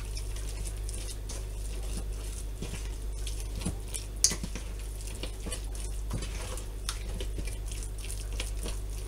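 Thick cake batter of flour, oats and grated carrot being stirred by hand in a stainless steel bowl: soft wet squelching with scattered clicks of the utensil against the bowl, the sharpest about four seconds in, over a steady low hum.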